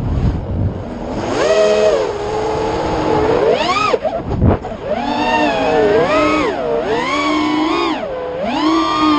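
FPV quadcopter's brushless motors whining, the pitch swooping up and down sharply again and again as the throttle is punched and cut. There is a short low rumble about four and a half seconds in.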